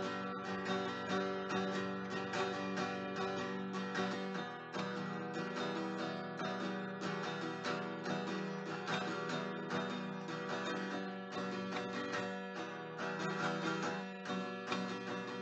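Background music: acoustic guitar picked and strummed in a steady rhythm.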